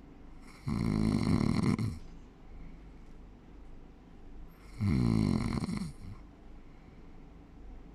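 A sleeping person snoring: two loud snores about four seconds apart, each lasting about a second.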